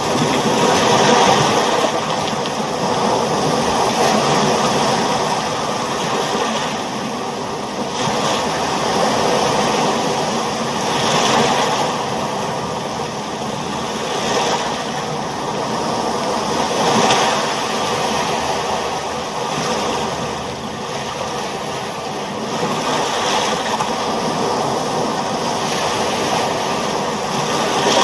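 Ocean waves washing in, the surge swelling and easing about every three seconds.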